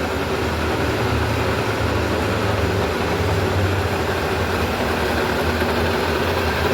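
Metal-cutting machine tool running steadily as it cuts a keyway into a stainless steel shaft: an even machine hum with a continuous cutting noise over it and no pauses or knocks.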